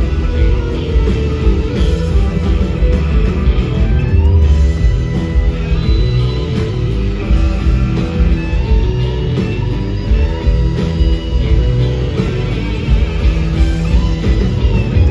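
Live blues-rock band playing an instrumental passage, with electric guitars over bass guitar and drums, loud and steady.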